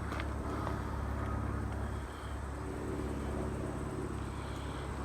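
Steady low hum of an engine or motor running, with a slight dip about two seconds in.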